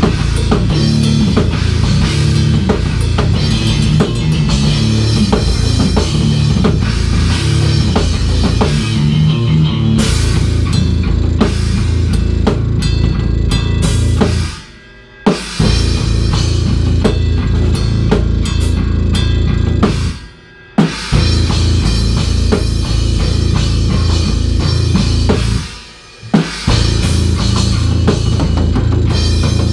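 A rock band plays live: a drum kit, with bass drum and cymbals, drives hard alongside electric guitar. The whole band stops dead three times for about a second each, and each time comes back in on a hit.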